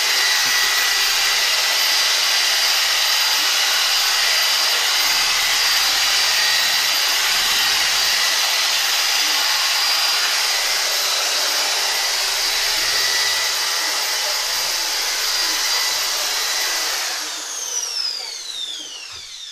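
Electric paddle mixer churning plaster mix in a plastic bucket, its motor running at a steady high speed. About three seconds before the end the trigger is released and the motor winds down with a falling whine.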